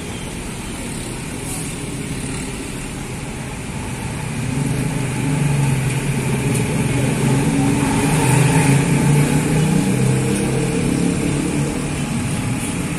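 A coach's diesel engine grows louder as the bus turns in and passes close by, loudest in the middle, then eases off slightly near the end.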